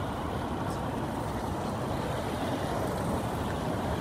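Steady street traffic: boda boda motorcycles and cars running past on a busy road, blending into one continuous rumble with no single vehicle standing out.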